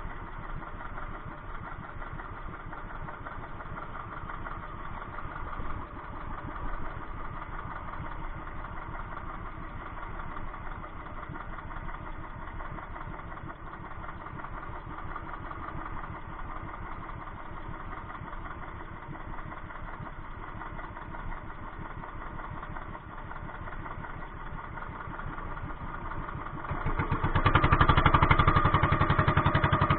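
An engine running steadily, its firing pulses even throughout; it grows clearly louder near the end.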